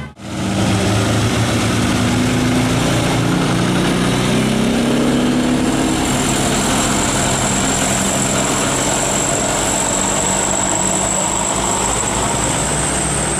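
Bus engine running with road noise, its note rising slowly for a few seconds as it accelerates, and a thin steady high whine in the second half.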